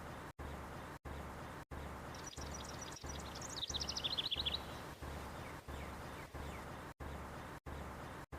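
A small bird singing: a quick run of high chirps a couple of seconds in that speeds into a falling trill and stops after about two and a half seconds, followed by a few faint chirps. It sits over a steady background hiss and hum that cuts out briefly about every two-thirds of a second.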